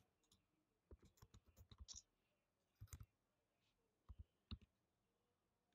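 Very faint typing on a computer keyboard: a handful of scattered key clicks, with a short run of them about two seconds in.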